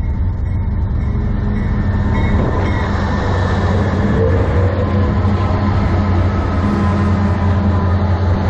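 Diesel locomotives of a CN freight train passing at close range: a loud, steady engine drone with a deep hum, mixed with the rumble of wheels on the rails.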